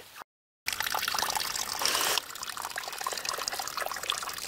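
Water trickling from a garden fountain's tap into a stone basin while a dog laps at it, a steady splashing with many small ticks. It starts after a brief silence near the start.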